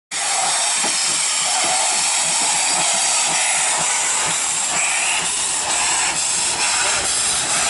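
Brig–Furka–Disentis No. 3 steam locomotive hissing steadily as steam vents from its open cylinder cocks, with faint regular beats underneath in the first few seconds.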